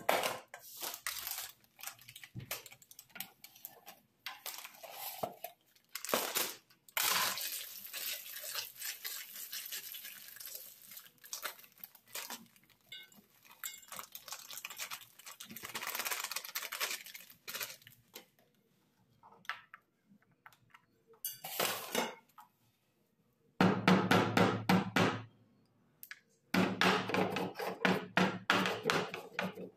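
Metal pot and utensils clinking and scraping on and off. About three-quarters of the way through comes a stone pestle pounding spice on a flat stone mortar: two runs of rapid knocks with a short pause between them.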